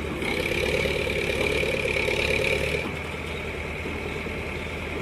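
ACE F150 pick-and-carry crane's diesel engine running, with a louder whine for the first three seconds or so as the boom is lowered with the suspended transformer, then dropping back to a steady run.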